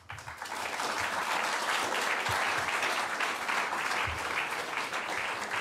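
Audience applauding steadily, many hands clapping at once, swelling up at the start.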